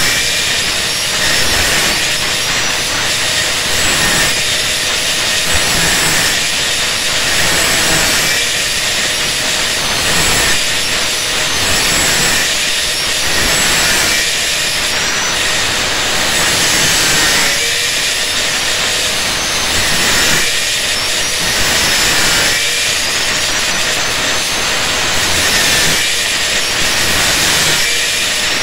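Handheld angle grinder with an abrasive disc running at speed and grinding the steel of an old saw blade, throwing sparks. A steady, high hissing whine that swells and eases every second or two as the disc is pressed and drawn along the blade.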